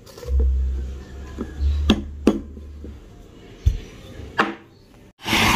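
Ground coffee tipped into a plastic AeroPress and the brewer handled on a wooden table: several light knocks and taps spread a second or so apart, with a short hiss-like burst near the end.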